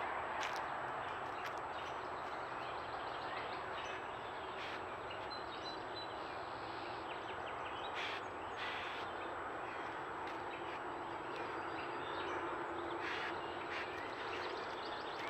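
Woodland ambience through a trail camera's microphone: a steady hiss with faint bird chirps, a few short clicks, and a constant thin high whine from the camera's electronics.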